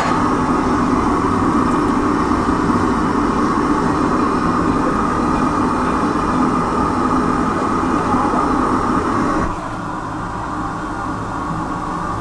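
A loud, steady machine-like roar with a constant hum in it. It drops abruptly to a quieter level about nine and a half seconds in.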